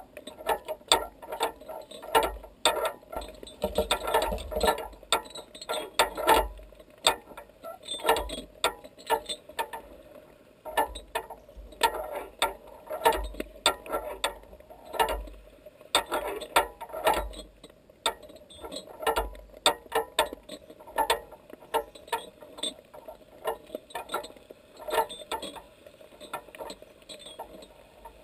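Irregular clicking and crackling heard underwater, the clicks coming in uneven clusters with short lulls.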